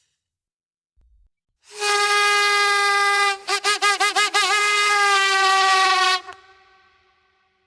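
A buzzy, horn-like comedy sound effect: one held note that warbles rapidly in pitch for about a second partway through, then steadies again and cuts off.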